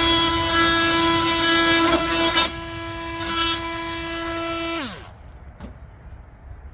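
Milwaukee M18 Fuel oscillating multi-tool plunge-cutting a pine 2x4 with a wide 1 3/4-inch wood blade: a steady, high-pitched buzz. It gets quieter about two and a half seconds in, and about five seconds in the pitch falls away as the tool winds down and stops.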